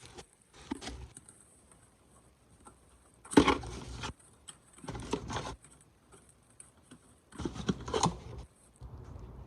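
Hands fitting a new oil filter onto the engine: three short bursts of rubbing and scraping with scattered light clicks.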